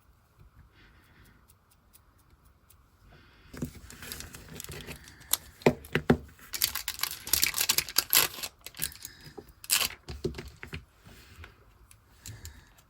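Close-up rustling, scraping and clicking of small nail-art tools and materials being handled. It starts after a few quiet seconds, runs busily with sharp clicks for several seconds and dies away near the end.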